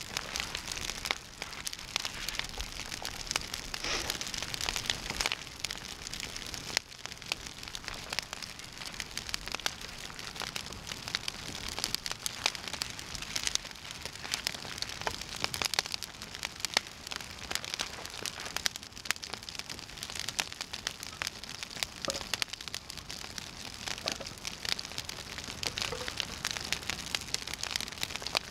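A freshly lit campfire of birch bark and twigs crackling steadily, with many small pops as it catches.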